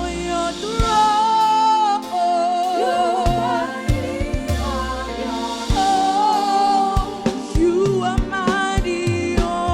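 Live gospel worship music: voices singing a slow, wavering melody over a band, with sustained bass notes and regular drum hits.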